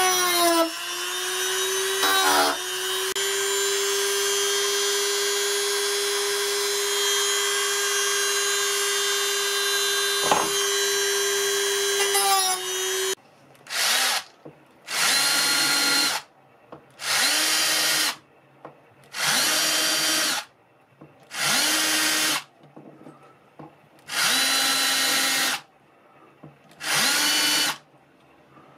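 A handheld rotary tool with a cut-off wheel grinds through saw-blade steel with a steady high whine for about thirteen seconds. Then a power drill bores holes through a wooden knife-handle scale in about seven short bursts, each one spinning up and stopping.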